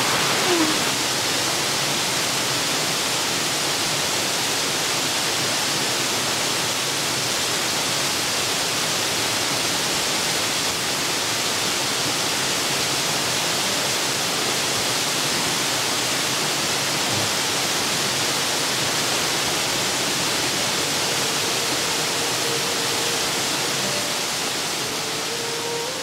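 Steady rushing of a mountain stream's cascades and waterfall, an even, unbroken hiss of water over rock that eases off slightly near the end.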